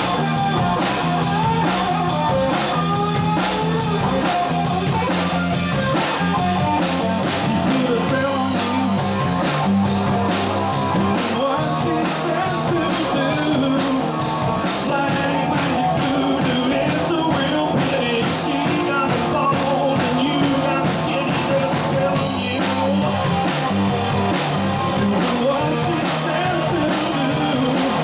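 Rock band playing live: electric guitar, bass and drum kit driving a steady, fast beat, with a voice singing over them.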